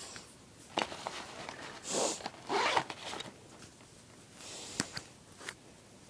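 A duffel bag's zipper being pulled in two quick strokes about two seconds in, with a fainter pull later. Sharp clicks and rustling come from handling the bag.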